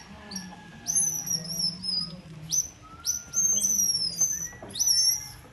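Tampios, a small bamboo hunting whistle, blown to imitate bird and squirrel calls: a quick run of high, chirping whistles, each starting sharply and sliding down in pitch, about two or three a second.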